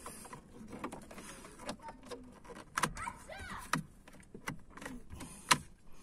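Plastic latches of an Opel Vectra B turn-signal and light switch unit snapping into the steering-column switch housing as it is pressed home: sharp clicks about three seconds in and again near the end, amid light plastic handling noise.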